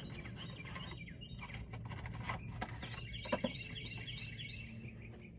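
Songbird chirping, with a quick run of repeated chirps starting about three seconds in, over faint background noise. A couple of sharp clicks sound around the middle.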